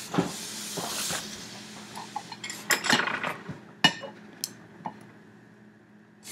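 Chopsticks clicking and clinking against a plate while picking up sushi: a soft rustle in the first second or so, then several sharp clinks.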